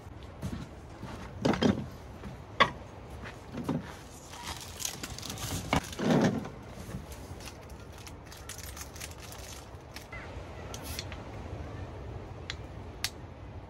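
Footsteps and knocks on a wooden deck as a person moves about and settles into a camp chair, with several loud thumps in the first half. A few light, sharp clicks near the end from handling a drink can.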